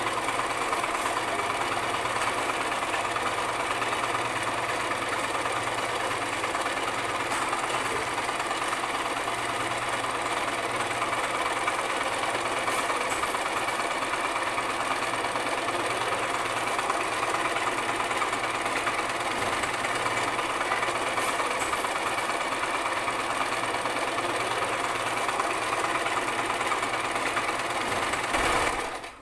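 Sewing machine running continuously at an even speed, then stopping abruptly near the end.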